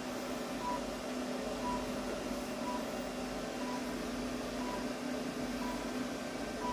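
An electronic device beeping a short, high tone about once a second over a steady low hum.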